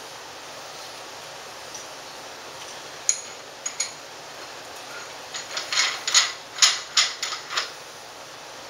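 Scattered metal clicks and knocks from a counterweight and its counterweight rod being handled on a telescope's German equatorial mount: a couple of clicks about three seconds in, then a quicker run of knocks from about five and a half to seven and a half seconds in.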